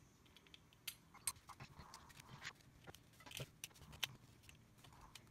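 Faint, irregular clicks and scrapes of a hobby knife blade chipping loose, acetone-softened plastic coating off a Roland Juno-106 voice chip.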